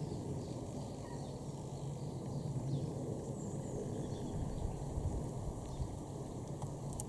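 Outdoor ambience: a steady low rumble with scattered faint bird chirps and a few soft clicks near the end.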